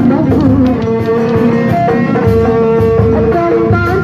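Live Sundanese street-procession music played through a loudspeaker sound system: a woman singing into a microphone over band accompaniment, with a long, wavering held note about halfway through.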